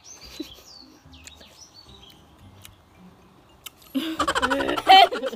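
Birds chirping faintly, then about four seconds in a loud, wavering vocal cry lasting just over a second: a reaction to the sour taste.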